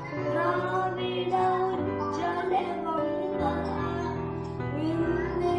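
A song with a female or child singing voice over instrumental accompaniment, steady bass notes under a wavering sung melody.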